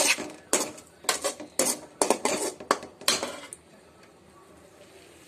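A metal slotted spoon scrapes and knocks against a metal kadai while stirring prawns in spice masala, in a quick irregular series of strokes. The strokes stop about three and a half seconds in, leaving a faint steady hiss.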